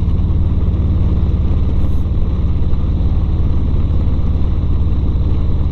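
Harley-Davidson Road Glide's V-twin engine running at a steady cruise, its exhaust pulsing evenly without revving up or down, under a haze of road and wind noise.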